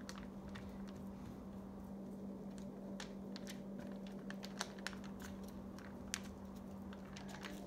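Wooden stick stirring Bondo body filler and hardener on a glossy magazine page: soft scraping with scattered small clicks and paper crinkles. A steady low hum runs underneath.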